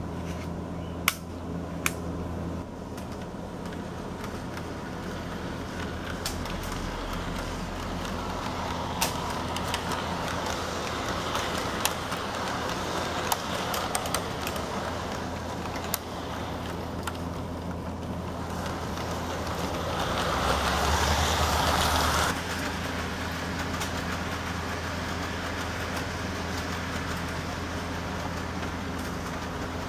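HO scale model commuter train running on the layout's track: a steady low hum with the rolling noise of the wheels and scattered sharp clicks. The rolling noise swells as the train passes close, loudest from about 20 s, and drops off suddenly about 22 s in.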